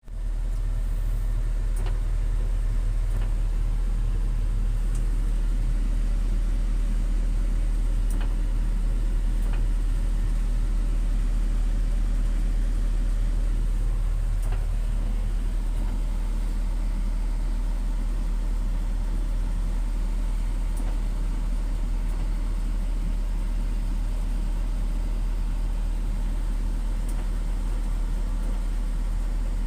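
Kobelco excavator's diesel engine running at a steady speed, a constant low hum with no revving.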